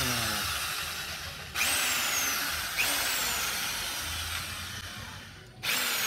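Corded electric drill running in short trigger bursts. Each burst starts with a quick rise in pitch and then slowly sinks, and the drill cuts out briefly about a second and a half in and again near the end. It is powered from a newly wired outdoor outlet, and its running shows that the outlet works.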